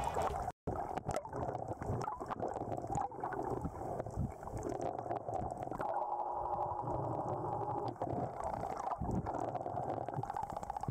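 Underwater sound picked up by a camera while snorkeling: muffled gurgling and bubbling water with a low rumble and scattered small clicks. The sound cuts out briefly about half a second in.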